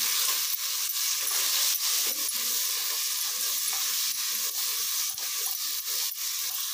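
Onion-tomato masala with ground spices sizzling as it is roasted in oil in an aluminium pressure cooker, a spatula stirring and scraping it around the pot. A steady frying hiss with frequent light clicks of the spatula against the metal.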